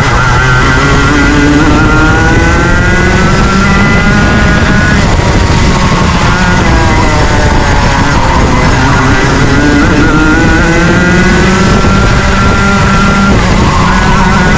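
Junior Rotax kart's 125cc two-stroke engine at race pace, its pitch climbing steadily through two long pulls. The pitch drops back about five seconds in and again near the end, over a heavy low rumble.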